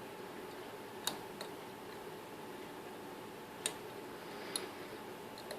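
A few faint, sharp metallic clicks of lock picks and a tension wrench working in a high-security Assa 700 lock, spaced about a second or more apart, over a steady low hum.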